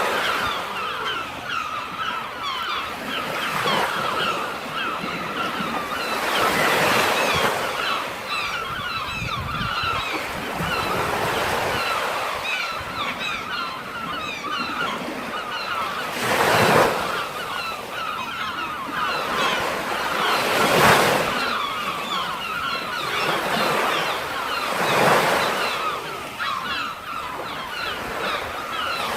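Sea surf washing onto the shore, with four louder surges of breaking waves, over many birds calling at once in a steady chatter.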